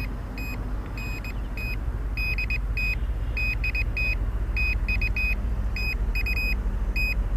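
Drone remote controller beeping: short high beeps, singly and in quick runs of two or three, repeating irregularly and without stopping. A steady low rumble sits underneath.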